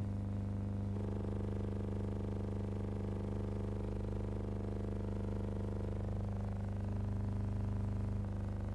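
Steady low electrical hum with a buzzing stack of overtones. Its upper tones shift slightly about a second in and again near the end; there is no other sound.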